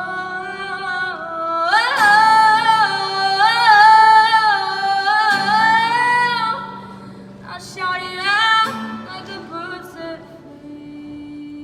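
Female solo singer over acoustic guitar. From about two seconds in she belts a long high note with vibrato, the loudest part, until about six and a half seconds. After that come shorter, quieter sung phrases.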